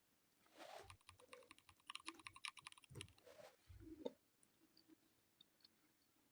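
Fast typing: a quick run of sharp key clicks for about three seconds, then it stops about four seconds in. Each keystroke is played as a simulated mechanical-keyboard switch click by keyboard-sound software on a membrane keyboard.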